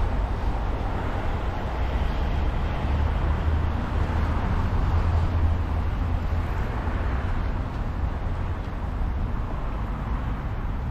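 Outdoor city street ambience: a steady low rumble with a rushing noise that swells and fades in the middle.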